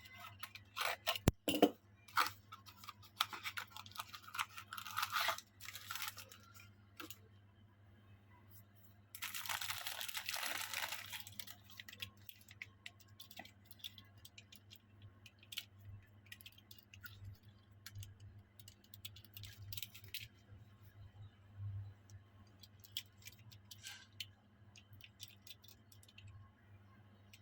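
Toy car packaging being handled: scattered crinkles and small clicks, with a tearing, rustling sound lasting about two seconds near the middle, then lighter taps and ticks. A steady low hum runs underneath.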